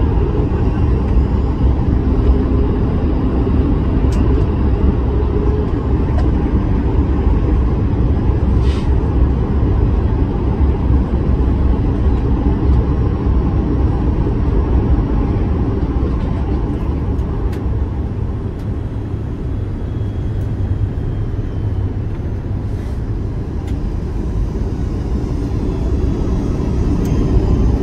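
Steady low rumble of engine and airflow noise inside the cabin of a Boeing 737 MAX 9 descending on approach. It eases slightly about two-thirds of the way through and builds again near the end.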